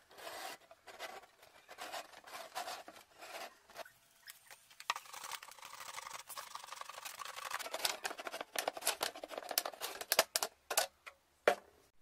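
A felt-tip marker rubbing in short strokes as it draws a line around a plastic jug. After a short lull, a utility knife blade saws through the jug's thin plastic wall, a rasping cut that ends in a run of sharp clicks and snaps as the base comes free.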